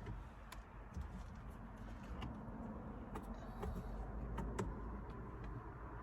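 Scattered short plastic clicks and scrapes as a new cabin air filter is worked into its housing behind a minivan's glove box, over a steady low rumble.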